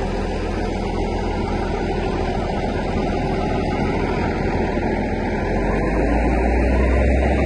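Tata Hitachi EX200LC crawler excavator's diesel engine running steadily, its low rumble growing louder about six seconds in.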